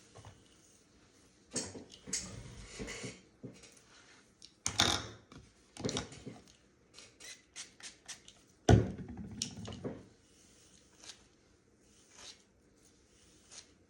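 Close handling noises: scattered rustles and small clicks, with one sharp thump a little under nine seconds in followed by a short rustle.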